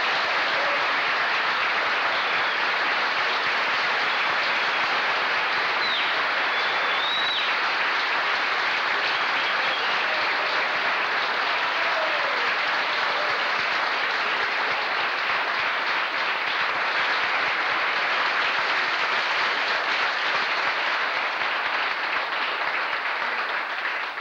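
Audience applauding steadily, dying away right at the end.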